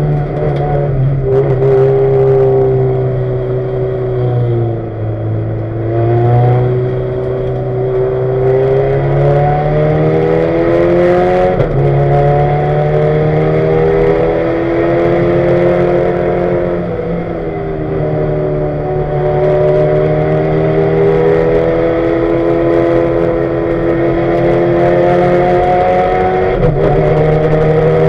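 Ford Focus race car's engine heard from inside the cabin, running hard with its note climbing and falling several times as the revs rise and drop. The turbocharger has failed, filling the cabin with smoke.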